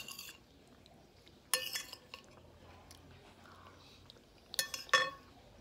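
Metal spoon clinking against a glass bowl while scooping food, with short ringing tones: a sharp click at the start, one clink about a second and a half in and two close together near the end.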